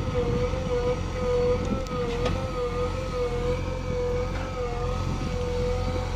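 Heavy diesel engine running steadily, with a high, steady whine over the engine rumble that wavers slightly in pitch.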